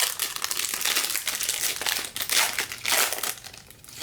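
Packaging crinkling and rustling as a trading-card pack is handled and unwrapped, in uneven bursts that fade near the end.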